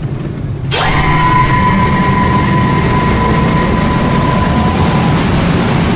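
Synthesized sound effect of an Intamin Impulse roller coaster's linear induction motor launch. A low rumble gives way, under a second in, to a sudden loud rush of noise with a steady high whine, and the whine drops out near the end.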